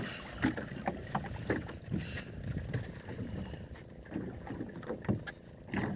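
Water splashing as a hooked king fish thrashes at the surface and is hauled up out of the sea beside a fibreglass boat, with scattered knocks.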